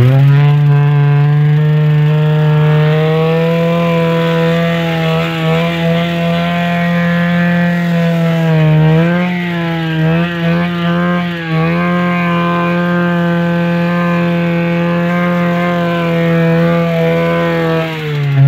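Rotax two-cylinder two-stroke snowmobile engine held at high revs with its intake open as a makeshift vacuum, running loud and steady. The pitch dips and wavers a few times midway, then drops off right at the end.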